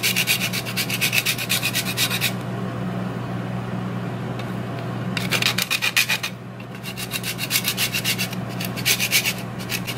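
Hard Parmesan cheese being grated on a metal grater: a dry rasp of quick, even strokes. It runs for about two seconds, stops for about three, then comes back in shorter bursts with brief breaks.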